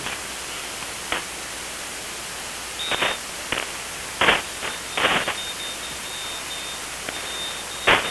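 Hermes SDR receiver audio tuned around 7.2 MHz in the 40-metre amateur band: a steady band hiss with several short bursts of noise and signal fragments. A thin, steady high whistle comes in about three seconds in and holds on.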